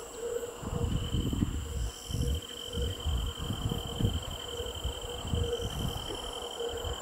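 Insects trilling steadily in a grassy field, with one high, even note that starts about a second in and holds. Under it is a low, gusty rumble of wind buffeting the microphone.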